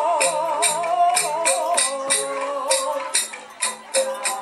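Jathilan dance accompaniment in gamelan style: sharp, bright strokes about three times a second under a wavering, vibrato-laden melody line.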